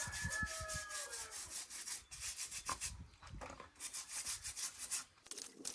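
A cassava root being scraped clean in quick, repeated strokes, in several runs with short pauses between. A rooster's crow trails off during the first second or so.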